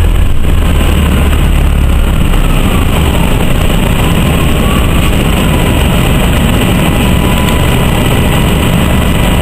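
Inside an Orion V transit bus under way: the Detroit Diesel Series 50G natural-gas engine gives a loud, steady low rumble, mixed with road and body noise.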